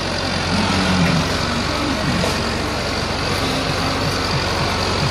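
Massey Ferguson 385 tractor's diesel engine running steadily under load as it hauls a heavily loaded trolley up a dirt slope.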